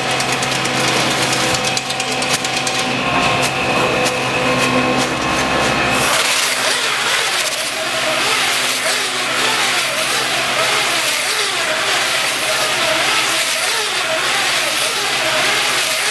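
McHale 998 square-bale wrapper running off its tractor, with steady engine and hydraulic hum and a high whine. About six seconds in the sound turns to a rougher hiss with a wavering, repeating whine as the wrapping arms spin stretch film around a hay bale.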